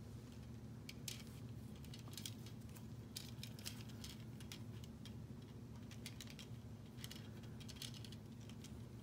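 Plastic K'nex pieces clicking and rattling in short scattered bursts as seats are clipped onto the rods of a K'nex ride model. A steady low hum runs underneath.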